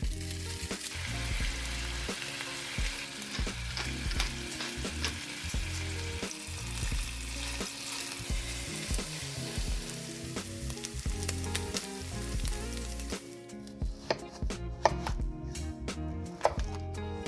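Food sizzling in a hot frying pan as it is stirred, over background music. The sizzle dies down about thirteen seconds in, and a few sharp clicks follow near the end.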